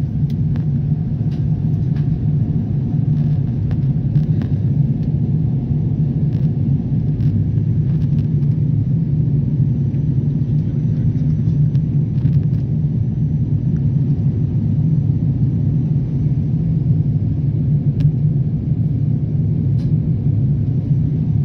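Steady low rumble of a jet airliner's cabin noise, engines and airflow heard from inside the cabin during descent, with a few faint clicks.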